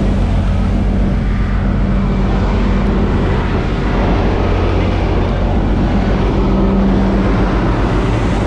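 A loud, steady engine drone with a low hum under a rushing noise, from machinery running on an aircraft-carrying warship's flight deck.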